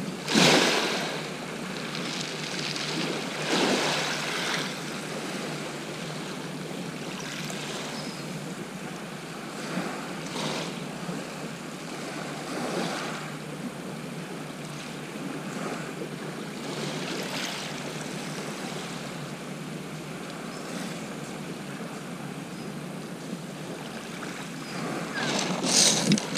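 Small waves lapping and washing on a shingle beach, a soft swell every few seconds over a steady hiss of wind.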